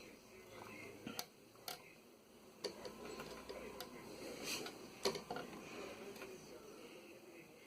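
Scattered light clicks and taps, about five at uneven intervals, from hand work on a TV power-supply board during soldering, over faint room noise.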